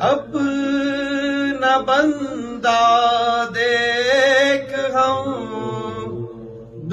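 A voice chanting Urdu elegiac verse in a slow melodic recitation, drawing out long held notes that waver in pitch, with brief breaks between phrases.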